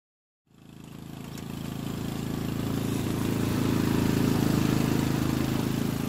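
Riding lawn mower's 16.5 hp Briggs & Stratton air-cooled engine running steadily. It fades in about half a second in and grows louder toward the middle.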